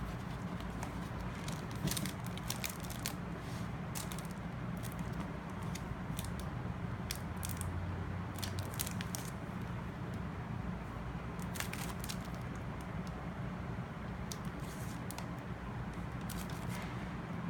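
Light clicks and crinkles of a paper planner being handled, scattered over a steady low hum.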